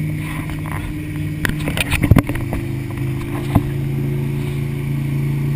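Motorboat engine running steadily at speed over rushing wake water. A quick cluster of sharp knocks comes between one and a half and two and a half seconds in, and a single knock about three and a half seconds in.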